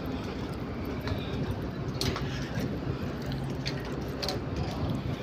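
Steady low machinery hum on a large cargo ship's deck, with scattered sharp clicks and knocks about two, three and a half, and four seconds in.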